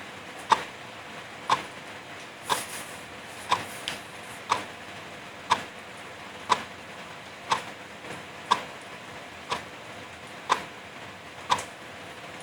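Wall clock ticking evenly, about one tick a second, over the steady hiss of light drizzle.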